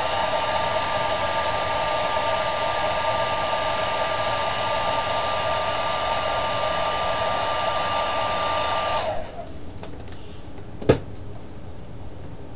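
Handheld hair dryer blowing steadily with a whine, then switched off about nine seconds in and winding down. A single sharp knock follows about two seconds later.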